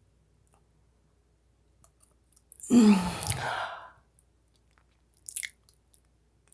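A person yawning: a breathy yawn of a little over a second, the voice in it sliding down in pitch. A short wet mouth click follows about a second later.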